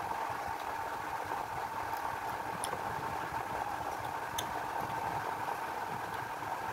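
A steady background hum with a constant tone, under a few faint clicks from eating rice by hand.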